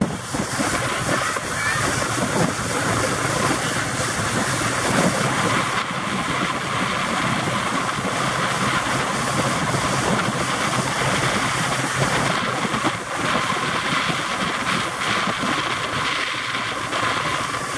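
Steady rushing noise of a pontoon boat under way, wind and water, with the boat motor's low hum underneath that drops away about two-thirds of the way through.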